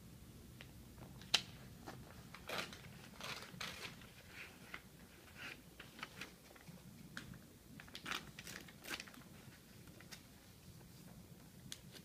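Scattered paper rustles and small crisp clicks from people writing feedback slips on paper, with one sharp click a little over a second in, over a low steady room hum.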